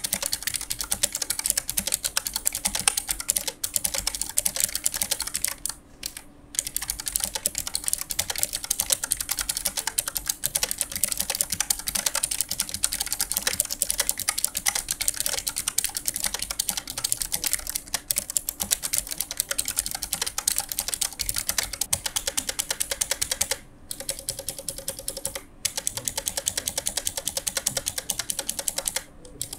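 Typing on a Keychron K3 ultra-slim mechanical keyboard with clicky orange low-profile switches: a fast, continuous run of key clicks, broken by brief pauses about six seconds in and twice near the end.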